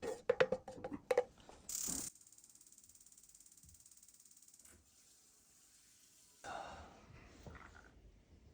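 Kitchen utensils knocking and clinking against cookware several times at first. Then comes a short burst of noise and a faint steady hiss, with a second brief rush of noise near the end.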